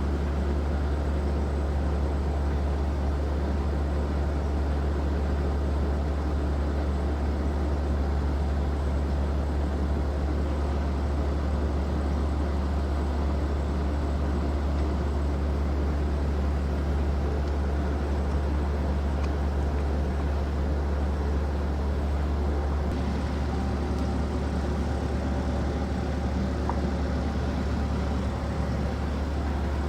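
Steady low machine hum with faint higher tones running evenly underneath, with a slight shift in its texture about two-thirds of the way through.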